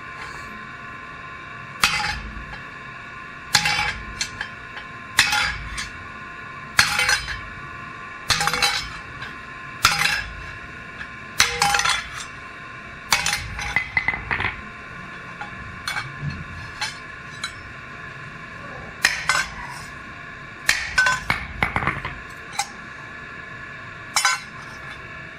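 Metal being struck over and over, a sharp ringing clink about every second and a half, as in hammering on a steel workpiece, over a steady high whine.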